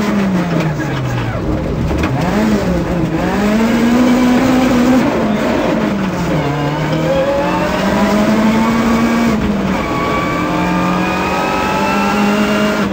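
Citroën Saxo rally car's engine heard from inside the cabin at full stage pace on gravel. The revs climb and drop several times as the driver changes gear and lifts, over a steady rush of tyre and gravel noise.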